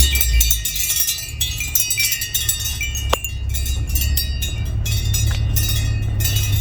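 Wind chimes tinkling, with held high tones and light ticks, over a steady low rumble. A brief chirp-like sweep comes about three seconds in.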